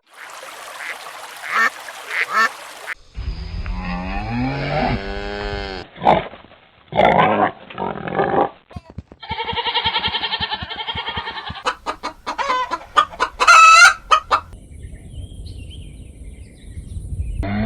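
Farm poultry calling in a series of short clips cut one after another: geese honking and chickens clucking, with repeated calls and abrupt changes every few seconds.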